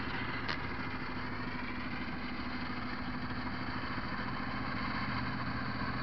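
A motor vehicle engine idling steadily: an even low hum over street noise, with one short click about half a second in.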